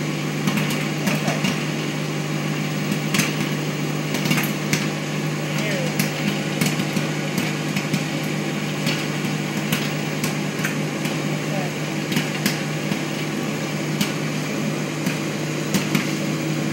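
Ninja Foodi indoor grill running with a steady fan hum, while popcorn kernels pop inside it now and then in sharp, irregular pops.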